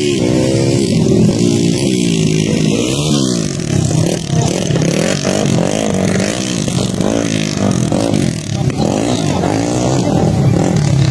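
Motocross dirt bike engines revving up and down as they ride the track, the engine note rising and falling again and again, with more than one bike heard at once at times.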